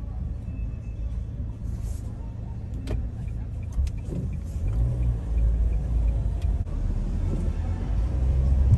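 Low rumble of city street traffic, growing louder toward the end.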